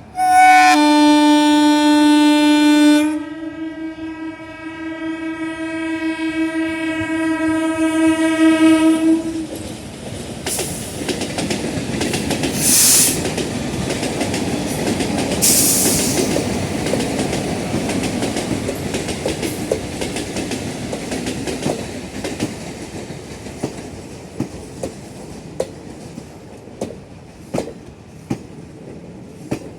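WAP-4 electric locomotive's twin-tone horn honking: one loud blast of about three seconds, then a softer, longer blast lasting about six more seconds. The express then rolls past with a steady rumble and the clickety-clack of wheels over rail joints, which thins into spaced clicks near the end.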